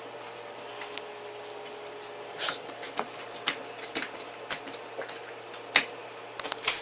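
Kitchen utensils and dishes clinking: scattered sharp clicks from a few seconds in, becoming a quick cluster near the end, over a steady faint hum.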